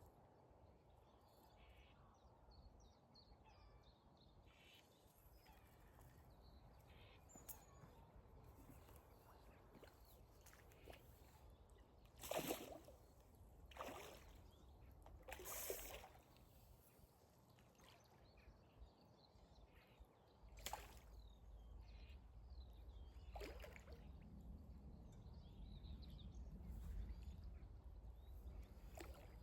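Quiet lakeside ambience with faint birdsong. Three short noisy sounds come close together about halfway through, and a low rumble builds over the last third.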